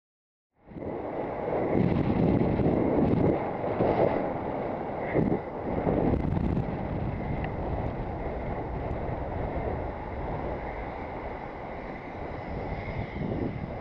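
Wind buffeting a cyclist's helmet-camera microphone while riding in traffic, with the noise of passing cars beneath. It starts suddenly just over half a second in and swells in gusts over the first several seconds before settling to a steadier rush.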